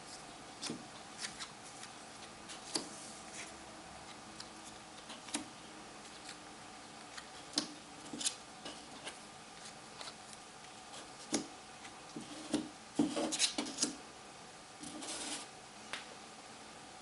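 Small card stickers handled on a wooden tabletop: scattered light taps and scrapes as they are picked up, set down and slid into place, with a busier spell of rubbing about thirteen seconds in and a short rustle after it.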